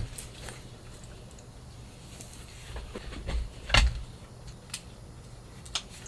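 Dogs and a person moving about at a cabin door: a few scattered light knocks and taps, the loudest about four seconds in, over a low steady hum.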